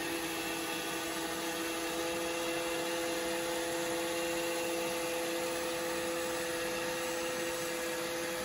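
iRobot Roomba 614 robot vacuum running steadily as it drives back to its charging dock: an even whir of its vacuum motor and brushes, with a steady whine of several held tones.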